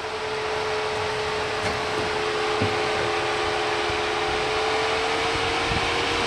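Jeep Wrangler crawling forward over rock at low speed, its engine and drivetrain giving a steady whine over a hiss that builds slightly; a couple of faint knocks about two seconds in.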